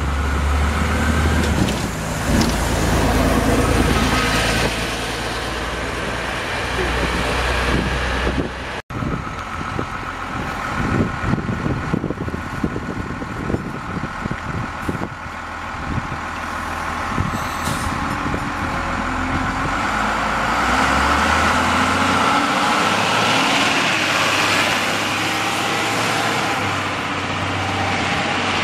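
Bus diesel engines running close by as buses move off, with the engine note rising as one accelerates away past the halfway mark. People talk in the background.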